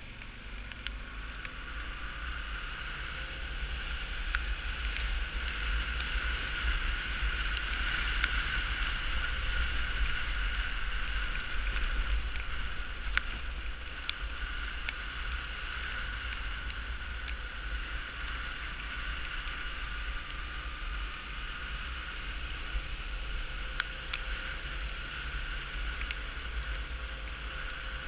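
Honda Tornado 250's single-cylinder engine running under way on a dirt road, getting louder over the first ten seconds or so and then holding steady, with heavy wind rumble on the microphone and scattered sharp ticks.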